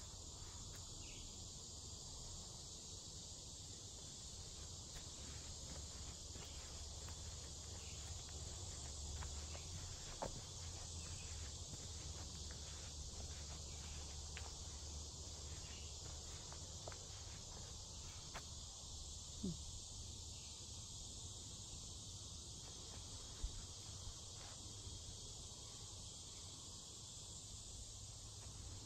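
Steady, high insect chorus of crickets or similar insects, with soft footsteps through leaf litter along a woodland trail.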